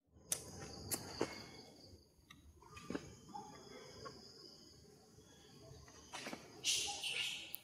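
Insects buzzing steadily in the background, with a few sharp clicks and a short, loud hissing noise about seven seconds in.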